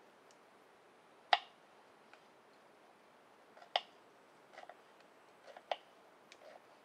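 Sharp clicks and taps of food preparation at a camp table: three crisp clicks about two seconds apart, the first the loudest, with softer taps in between.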